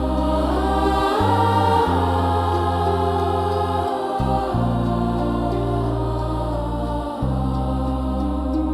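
Slow devotional music: sustained choir voices held over low bass notes that change about every three seconds.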